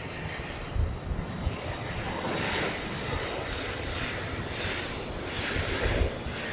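Antonov An-124's four D-18T turbofan engines running: a steady jet roar with a faint high whine and an uneven low rumble.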